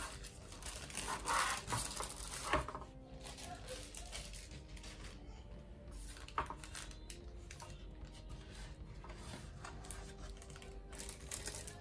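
Handling noise from unpacking a collectible prop: plastic packaging rustling and crinkling, strongest in the first few seconds, with a couple of sharp clicks as parts are set down or fitted.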